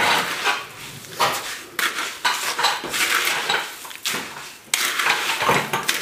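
Wooden spoon stirring Coco Pops coated in melted copha in a white bowl: a run of irregular scraping, rustling strokes against the bowl.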